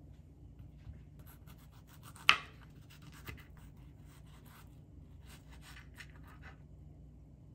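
Small kitchen knife slicing fresh strawberries on a cutting board: two runs of quick small scrapes and ticks as the blade goes through the fruit, with one sharp knock a little after two seconds in.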